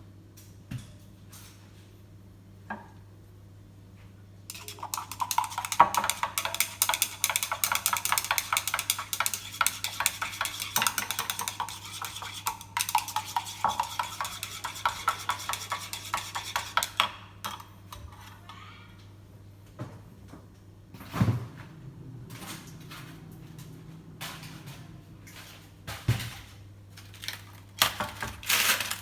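Dishes and cups clattering. A dense, rapid rattle of clinks and scraping starts about four seconds in and lasts about twelve seconds, then gives way to scattered single clinks and knocks, over a steady low hum.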